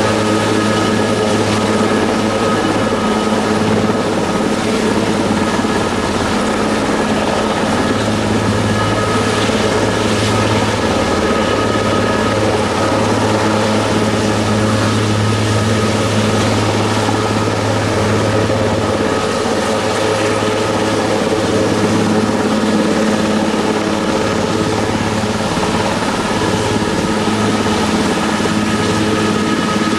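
Aerospatiale AS332L1 Super Puma twin-turbine helicopter hovering close by: a steady, loud rotor thrum with a constant turbine whine over it.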